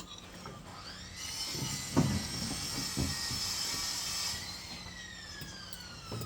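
A small motor whines up to speed, runs steadily for about three seconds, then is switched off and winds down slowly in pitch. A couple of low knocks come about two and three seconds in.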